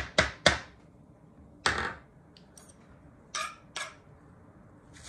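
Metal rasp grater knocked and scraped on a plastic cutting board in a few quick strokes, then a longer clatter just under two seconds in, followed by two lighter knocks.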